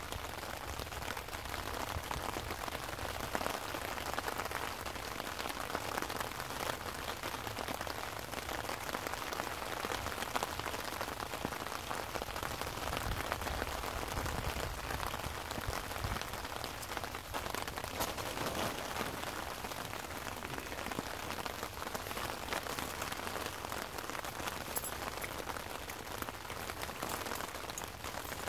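Steady rain falling, a continuous hiss made up of many fine drop ticks.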